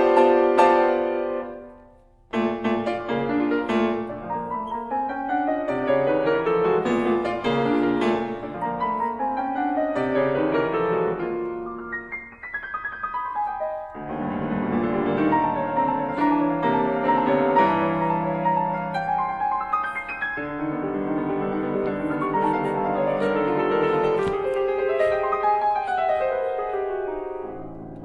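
Grand piano playing contemporary concert music. A ringing chord dies away about two seconds in, then a busy passage of many quickly struck notes begins, thinning briefly about halfway through before picking up again.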